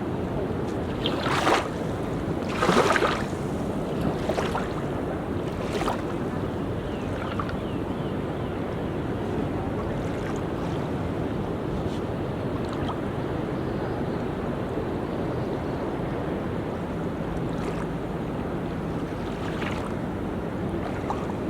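Sea surf washing onto a beach: a steady rush of water with a few sharper splashes in the first six seconds, the loudest about three seconds in.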